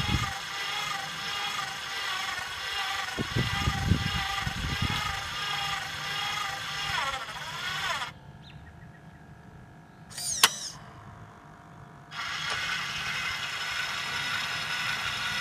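Small electric gear motor of an automated fishing-rod casting mechanism running with a steady whine as it slowly loads the casting spring. The whine drops in pitch and stops about halfway through, a single sharp click follows a couple of seconds later, and the motor starts running again.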